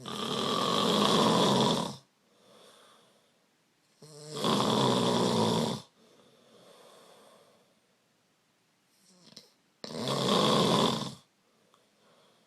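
A sleeping person snoring loudly: three long rasping snores on the in-breath, about five seconds apart, with softer breaths out between them.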